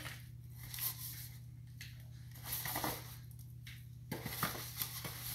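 Faint handling sounds of an aluminium foil pan, with a few soft crinkles and taps as seasoned turkey wings are lifted out onto a plate, over a steady low hum.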